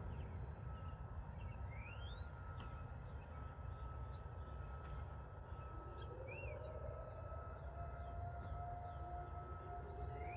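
Outdoor tornado warning siren starting up about halfway through: its pitch rises and then holds a steady tone, and a fainter, lower second tone joins near the end. A few short bird chirps sound over a low background rumble.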